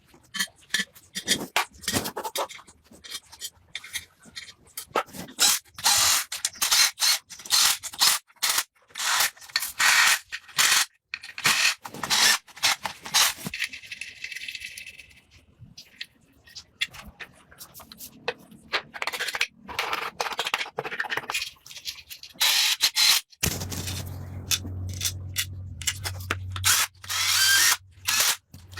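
Repeated scraping and rubbing strokes of hand tool work, irregular and quick. About halfway through there is a steady hiss for a couple of seconds, and later a small motor hums steadily for a few seconds.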